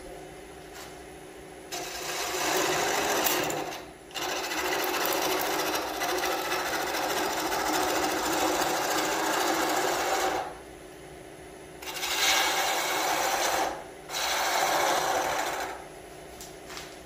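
Wood lathe running with a gouge cutting a spinning nargusta scoop blank that is mounted off-centre. The lathe hums steadily throughout, and the cutting comes in four passes: about two seconds from near the start, a long pass of about six seconds, then two shorter passes near the end. The turner finds this wood a little brittle, with pieces breaking out under the cut.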